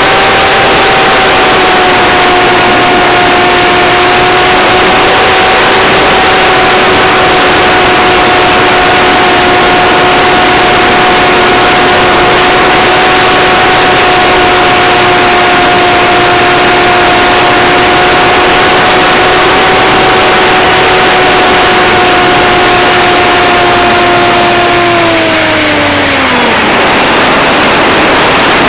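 The RC Icon A5 model airplane's motor and propeller whine at a steady pitch over a loud hiss of rushing air, picked up by the camera strapped to the plane. Near the end the whine slides sharply down and dies away as the throttle is cut on the approach to landing, leaving only the air rush.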